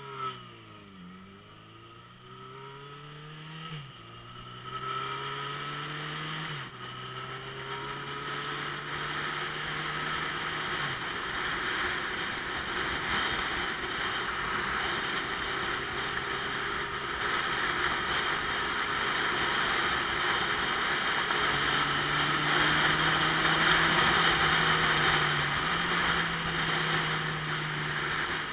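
Motorcycle engine pulling away and accelerating through several upshifts. Its note climbs in pitch and then drops at each gear change, three times in the first eleven seconds and once more near the end. A broad wind rush builds as speed rises until it is the loudest thing heard.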